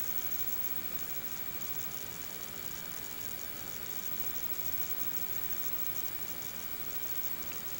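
Steady static hiss and low hum from a blank stretch of VHS tape playing back, with a faint steady high-pitched tone through it.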